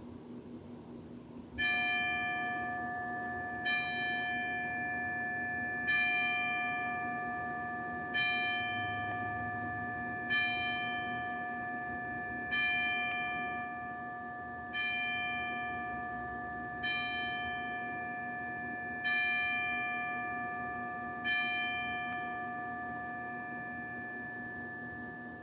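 A single bell struck about ten times, roughly every two seconds, each stroke ringing on into the next so the tone never dies away between strikes.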